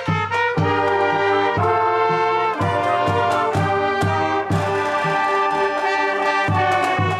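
High school marching band brass section, trumpets among them, playing a tune of held notes over a steady drum beat of about two hits a second.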